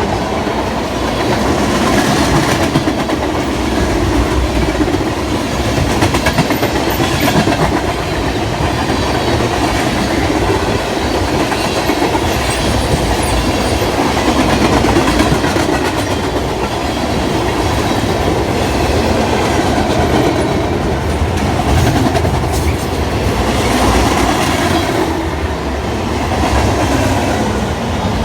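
Freight train cars rolling past: steady rumble and rattle of the cars, with wheels clicking over the rail joints.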